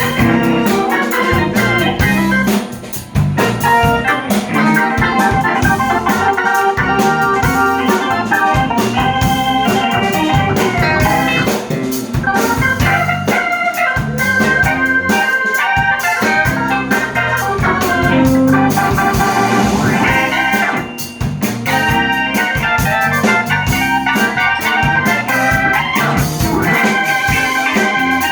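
Live band playing an instrumental break with no singing, a keyboard in the lead.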